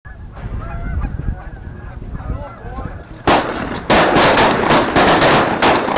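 Canada geese honking, then one shotgun blast about three seconds in, followed by a rapid volley of shotgun fire from several guns as the hunters shoot into the flock.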